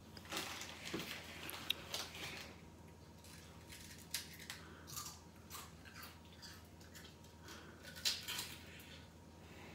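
Crisp packet rustling, then Flaming Hot Monster Munch corn snacks being crunched and chewed, in irregular bursts of crackling.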